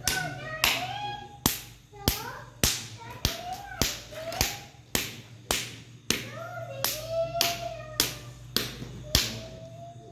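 A hand slapping a person's body hard and steadily, about two slaps a second, during a ruqyah healing session. Between the slaps come short cries that rise and fall in pitch.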